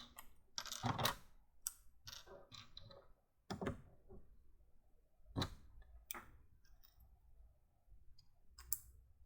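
Irregular sharp clicks and taps of plastic LEGO Technic pieces being handled and pressed together.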